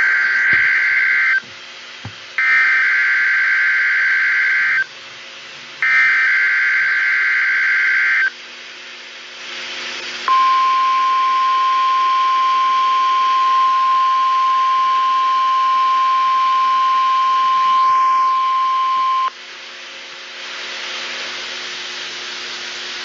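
NOAA Weather Radio required weekly test: three bursts of SAME digital header data, each a buzzy warble about two seconds long, followed by the steady 1050 Hz warning alarm tone held for about nine seconds, then radio static hiss.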